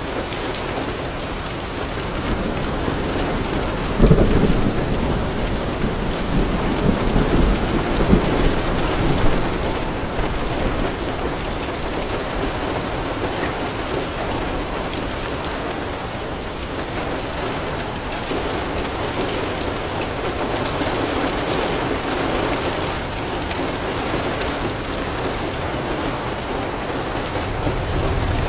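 Heavy rain falling steadily on leaves and a roof. A sudden thunderclap comes about four seconds in and rumbles on for several seconds, and a low rumble of thunder returns near the end.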